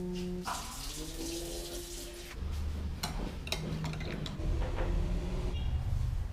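Water running, as from a tap, with several sharp clicks and knocks.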